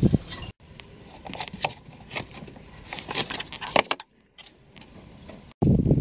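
Metal tools and a threaded caliper piston wind-back tool clinking and rattling against each other in a string of sharp clicks, breaking off about four seconds in; a louder low handling noise starts near the end.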